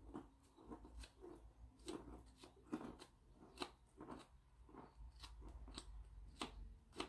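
Hoof pick scraping dirt out of a horse's lifted front hoof, in short, irregular scrapes, two or three a second.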